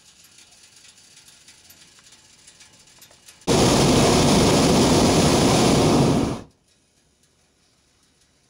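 Hot air balloon's propane burner firing in one blast of about three seconds, starting abruptly about three and a half seconds in and cutting off sharply.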